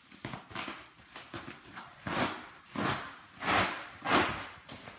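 Packing wrap rustling as it is handled and pulled off, in a series of short swishes, with four louder ones in the second half.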